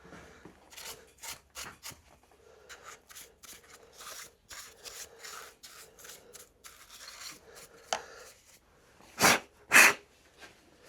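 Hands and a small tool scraping and clicking at an unplugged plastic motorcycle electrical connector, in many short scratchy strokes, cleaning a fly out of it. Near the end come two short, loud hissing bursts about half a second apart.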